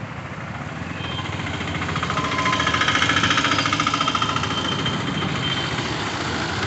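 Auto-rickshaw's small engine with a fast knocking rattle, swelling to its loudest about three seconds in as it passes close and then easing off, over the hiss of tyres on a flooded road.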